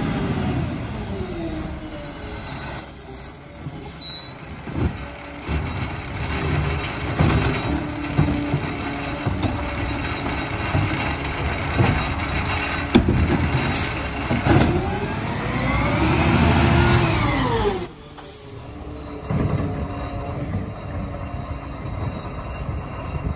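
Peterbilt 520 garbage truck with an automated side-loader body, its diesel running steadily at the curb, with short air-brake hisses. About 14 s in the engine revs up and settles back down by about 18 s, the note rising then falling, which fits it driving the hydraulic arm through a cart pickup.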